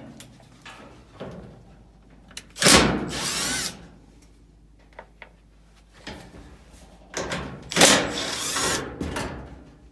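Power screwdriver running in two short bursts of about a second each, backing out screws from the dryer's back panel, with light knocks in between.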